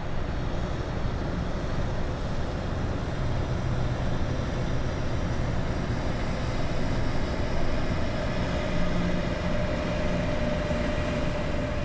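Panama Canal electric towing locomotive (mule) climbing the steep rail incline between lock levels: a steady mechanical rumble with a thin whine that grows stronger about halfway through.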